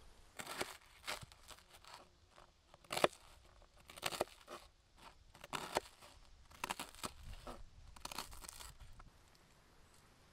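A series of short, crisp crunches and crackles: a knife cutting through grill-toasted bread into croutons on a wooden cutting board, with dressed lettuce leaves being tossed by hand. The loudest crunch comes about three seconds in, and the crunching stops about a second before the end.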